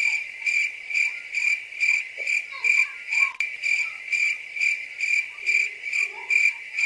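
High-pitched chirp repeating evenly about twice a second at a steady pitch, cutting in and stopping abruptly.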